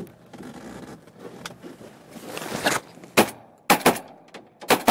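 A volley of shotgun blasts from turr hunters in a boat: about five loud shots in quick succession in the last two seconds, after a brief rising rustle.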